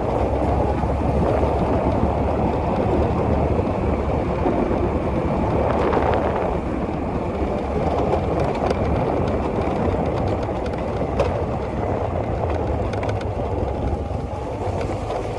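A small boat's engine running steadily under a constant rush of wind and water.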